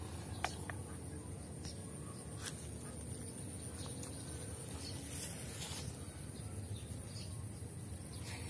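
Quiet pondside ambience: a steady high-pitched insect drone over a low rumble, with one small click about half a second in.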